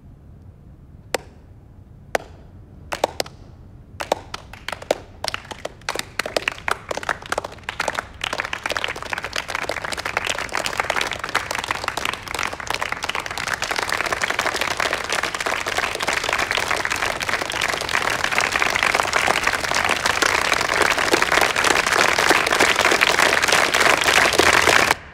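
A slow clap begins with single claps about a second apart. More hands join until the whole room is applauding, growing steadily louder, and the applause cuts off abruptly near the end.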